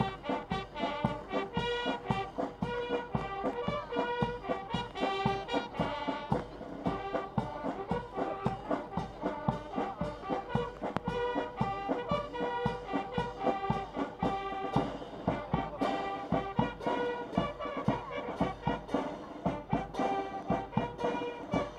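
A massed corps of Japanese military signal bugles playing a march tune in unison, with a bass drum beating time at about two beats a second.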